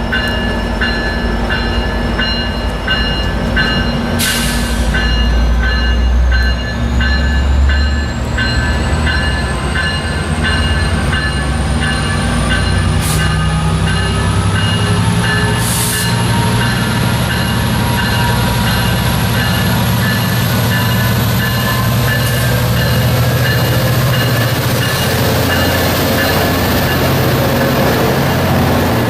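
A train moving through with heavy low rumble and a whine that slowly rises in pitch as it gathers speed, while a bell rings steadily and quickly.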